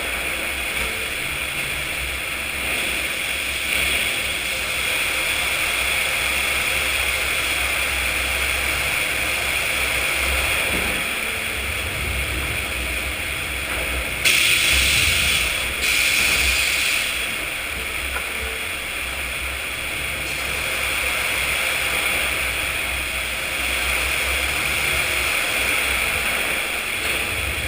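Sawmill machinery running steadily with a low rumble and a high hiss, with two louder bursts of hiss about halfway through.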